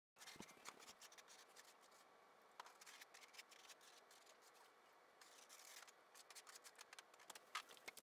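Faint crunching and scraping of a snow shovel clearing snow off pavement, a rapid run of scratchy strokes, with a dull thump just after the start.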